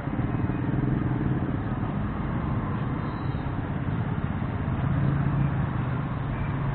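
Steady street traffic noise with a motor vehicle engine running close by, its low hum growing stronger about five seconds in.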